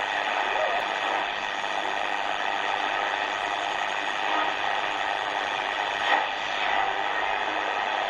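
Shortwave static hiss from the speaker of a Tecsun R-909 analogue radio, tuned between stations while scanning the 31-metre band. A short crackle comes about six seconds in.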